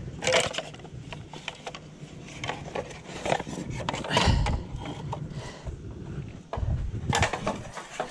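Objects being handled and moved: irregular knocking, clattering and scraping, with a couple of heavier thumps partway through.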